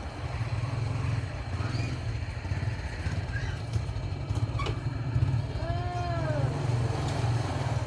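A steady low rumble, with a brief pitched call that rises and falls about six seconds in.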